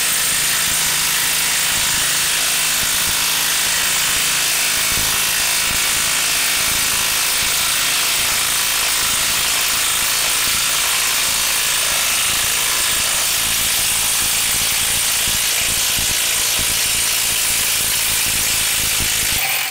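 Makita 18V cordless 3/8-inch impact wrench hammering steadily on its highest speed setting as it drives a long screw into a wooden log. It cuts off suddenly at the end.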